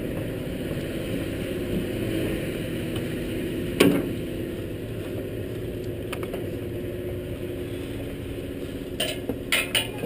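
Steady low mechanical drone, with one sharp knock about four seconds in and a quick cluster of knocks near the end.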